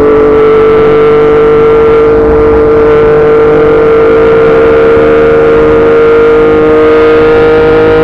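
Yamaha MT-09's inline-three engine through a Yoshimura R55 slip-on exhaust, held at steady high revs in one gear. Its pitch rises slowly and evenly.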